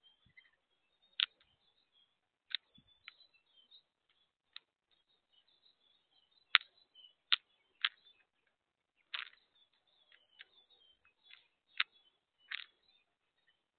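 Mourning doves pecking at seed: about a dozen sharp taps of their beaks on the plastic seed tub and wooden feeder tray, coming irregularly one to two seconds apart. Faint bird chirps sound in the background.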